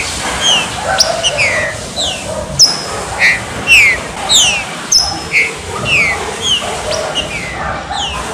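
Green-winged saltator (trinca-ferro) birdsong: a steady run of quick, falling whistled notes at many different pitches, several a second.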